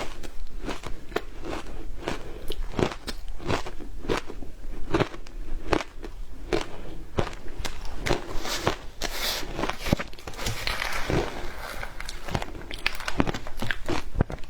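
Frozen matcha ice being bitten and crunched between the teeth: a quick, continuous run of sharp cracks and crunches, several a second.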